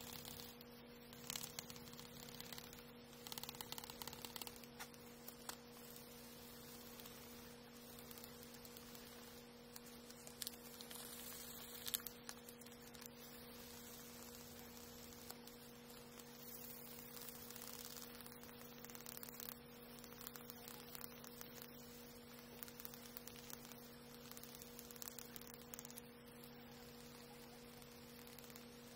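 Faint scratching of sandpaper rubbed by hand over a carved akagashi oak shift knob, in irregular strokes with small clicks, over a steady electrical hum.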